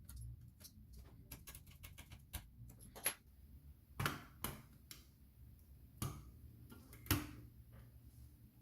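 Irregular light clicks and taps of small hard parts or tools being handled, with a few sharper knocks about three, four, six and seven seconds in.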